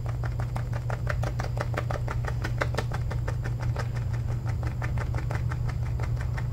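Badger shaving brush whipping shaving-soap lather in a ceramic bowl: a fast, even run of wet, squelchy clicks like an egg beater. A steady low hum runs underneath.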